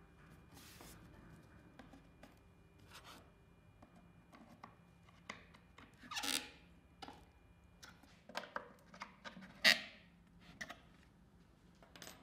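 Faint handling sounds: scattered clicks, taps and short scrapes as wooden cabinet panels are fitted and a small key tightens a knock-down connector in the corner joint. A half-second scrape comes about halfway, and the loudest click comes later.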